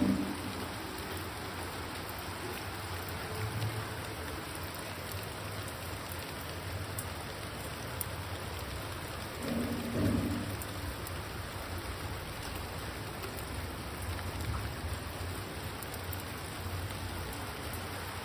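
Steady rain falling on garden plants, an even hiss throughout, with a low rumble that swells briefly about halfway through.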